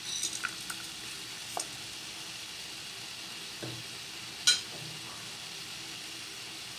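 Steady sizzling hiss from the pot of milkfish and vinegar heating on the stove, with a few light clicks in the first two seconds as whole peppercorns and salt are dropped onto the fish, and one sharper click about four and a half seconds in.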